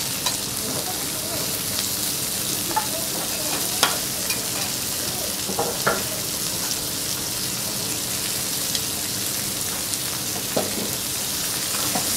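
Pork and chicken sizzling steadily on a hot steel teppanyaki griddle with butter. A few short metal clinks of the spatula and fork against the griddle come through the frying.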